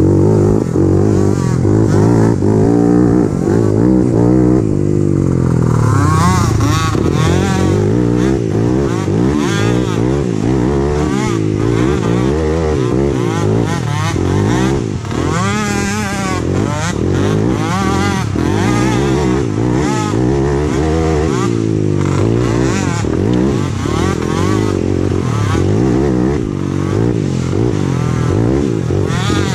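Small youth quad (peewee ATV) engines racing, revving up and down over and over with the throttle. More than one engine is heard at once at times.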